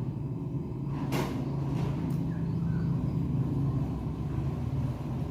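A steady low hum, with a couple of soft clicks about one and two seconds in.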